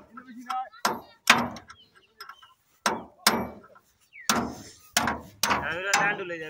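Hand hammer striking a spanner held against a fitting on the gear end of a ZS1115 diesel engine, to break it loose. About eight sharp metal-on-metal blows, mostly in quick pairs, each with a short ring.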